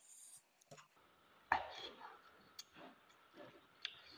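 Close-up eating sounds of a man eating fish curry by hand: chewing with wet lip smacks and clicks, the sharpest smack about a second and a half in.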